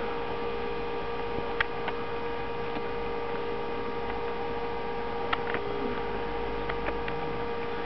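A steady electrical hum, with a handful of small, sharp clicks scattered through it from a budgerigar's beak chewing at a string.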